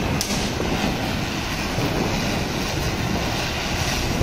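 Ground spinner firework (chakri) burning on a tiled floor, giving a steady rushing hiss as it sprays sparks, with one short crackle about a quarter second in.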